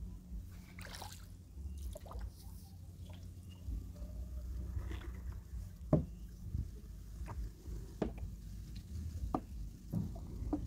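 Water dripping and splashing lightly as a wooden boat pole dips into and lifts out of a creek, in scattered irregular drips over a low steady rumble.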